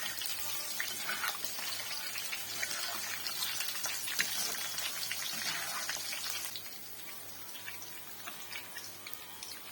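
Chicken kola balls and a handful of curry leaves frying in hot oil: a dense sizzle full of sharp pops and crackles, which drops to a quieter sizzle about six and a half seconds in.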